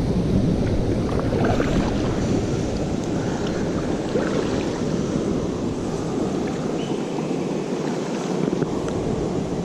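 Steady rush of flowing river water, the river running high and fast.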